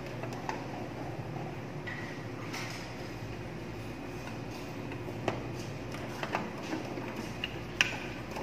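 A few small, sharp metallic clicks and ticks from a screwdriver working the terminal screws of a thermal overload relay in a motor control panel, over a steady low hum. The sharpest click comes near the end.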